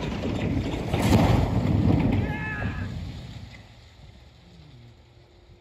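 A tall corrugated-metal grain silo toppling and crashing down. There is a loud rumbling crash of buckling sheet metal that peaks about a second in and dies away over the next two seconds.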